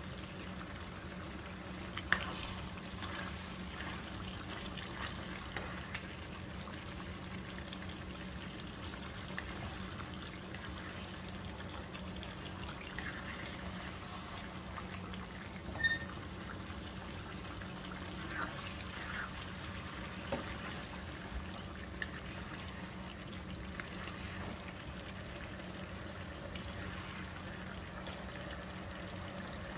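Chicken and pineapple sauce simmering and bubbling in a pan as it reduces to thicken, with a few sharp pops, the loudest about two seconds in and about sixteen seconds in. A steady low hum runs underneath.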